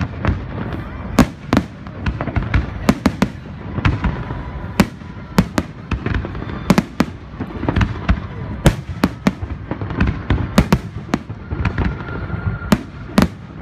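Fireworks display: aerial shells launching and bursting, a rapid, irregular run of sharp bangs over a continuous rumble.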